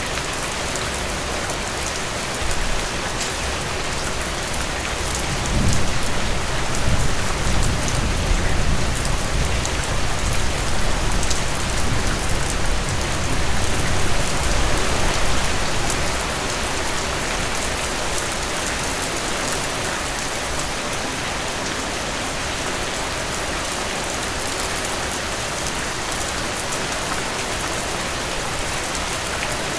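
Heavy rain falling steadily. A long, low rumble of thunder swells in about five seconds in and rolls on for about ten seconds before fading back under the rain.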